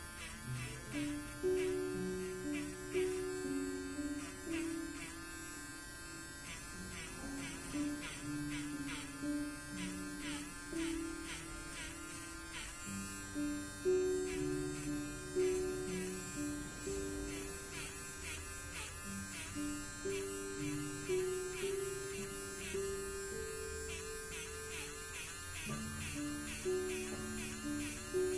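Instrumental background music: a slow melody of held notes, changing pitch every second or so, over a buzzy, steady backing.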